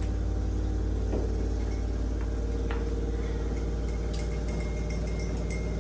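A steady low mechanical hum with a few faint light clinks.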